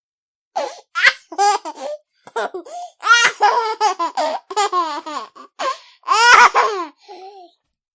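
A baby laughing in repeated bouts of short, high-pitched giggles and squeals, with brief pauses for breath between bouts.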